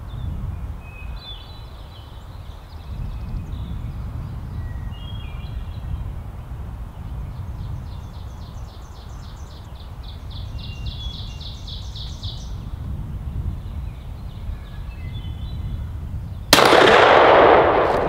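Small birds chirping, one with a rapid even trill lasting about five seconds in the middle, over low wind rumble. Then, about a second and a half before the end, a single loud gunshot that rings out and dies away: the shot that drops a wild turkey gobbler.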